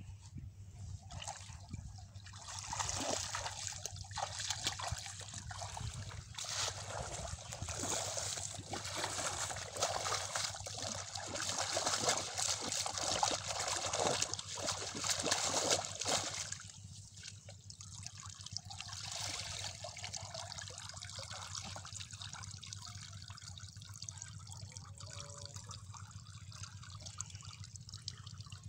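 Water splashing and trickling as a woven bamboo scoop trap is pushed through shallow pond water and lifted, water draining through its mesh. The splashing is strongest in the first half and falls away at about 16 seconds to quieter trickling.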